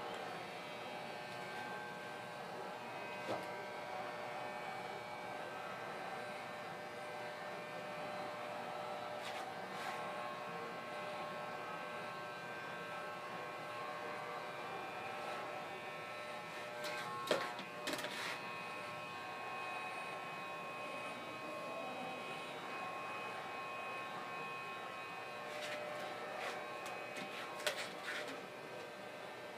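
Electric hair clippers running with a steady buzz, with a few sharp clicks and knocks in the middle and again near the end.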